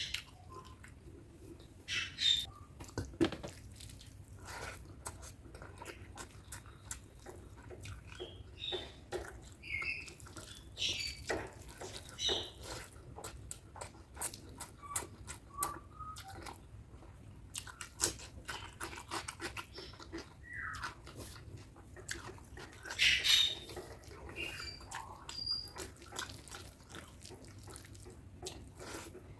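Close-miked eating sounds: wet chewing, lip smacks and small mouth clicks of someone eating chicken curry and rice, coming in irregular bursts.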